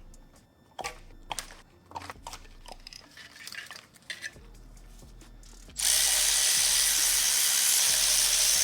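Hand tools clicking and knocking on the engine, then a loud, steady rushing whir from a shop tool that starts abruptly about six seconds in and keeps going.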